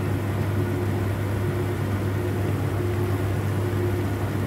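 Steady low electric hum of a running kitchen appliance, even in level throughout.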